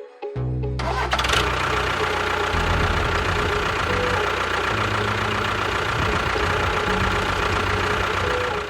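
A motor running steadily with a dense, rattly noise that starts a little under a second in, with low steady tones underneath.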